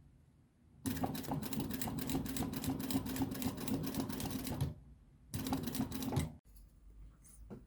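Sewing machine stitching leather in two runs: rapid, even stitch strokes over a steady motor hum for about four seconds, a short pause, then a brief second run of about a second.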